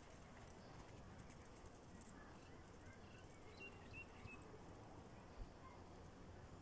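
Near silence: faint outdoor background, with a few faint short high chirps around the middle.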